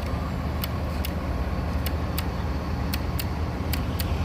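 Bus engine idling with a steady low rumble, overlaid by sharp, high ticks that come in pairs about once every second.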